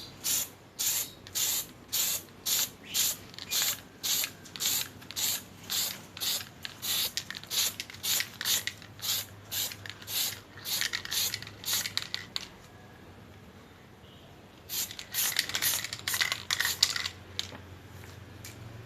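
Red spray paint hissing from an aerosol can in short, light bursts about two a second, misting a thin cloud-like coat over a crystal-effect chemical. The bursts stop for a couple of seconds near the middle, then come again in a quicker run.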